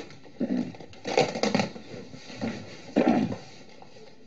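Cardboard box and packaging being handled and rustled, in a few short, irregular bursts.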